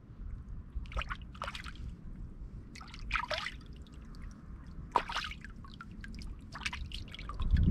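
Water splashing and trickling in several short bursts as hands rinse and clean a small fish in shallow stream water.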